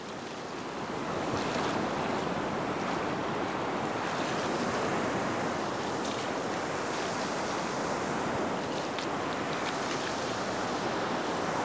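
Ocean surf breaking and washing up a flat beach, a steady rushing with wind buffeting the microphone; it swells a little about a second in, then holds level.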